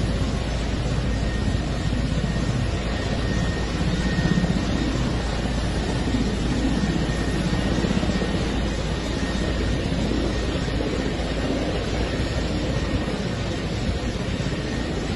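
Military transport helicopter running on the ground, its engines and rotor making a steady rushing noise with a faint high whine.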